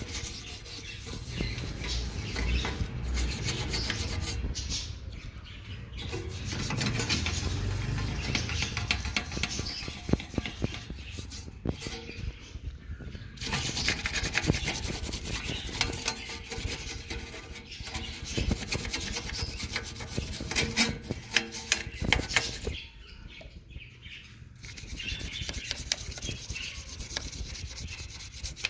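Toothbrush bristles scrubbing rust stains off painted car body metal around the fuel filler opening. The rubbing strokes are scratchy and continuous, with two short pauses.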